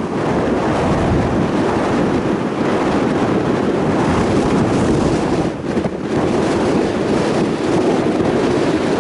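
Strong wind blowing across the microphone, a loud steady rush of noise that dips briefly about five and a half seconds in.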